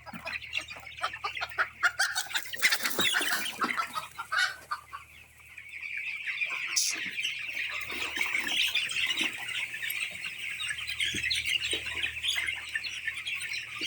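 Chickens clucking and squawking, with many short rustles in the first few seconds that fit flapping wings. From about six seconds in, a dense, steady high-pitched chorus of cheeping carries on under the clucking.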